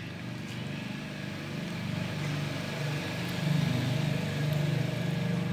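A motor vehicle's engine running nearby with a steady low hum, growing louder through the clip and loudest toward the end.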